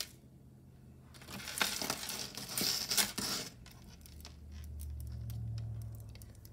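Crinkling and rustling for about two seconds as jewelry pieces are handled and unpacked, with light clicks throughout. A low hum swells and fades in the second half.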